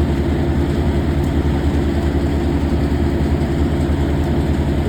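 Large engine running steadily at constant speed, a low pulsing drone.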